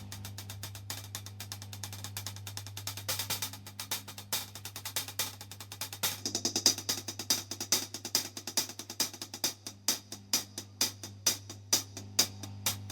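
Experimental music: dense, rapid hi-hat-like clicking percussion over a steady low hum, settling in the second half into a regular pulse of about three sharp clicks a second.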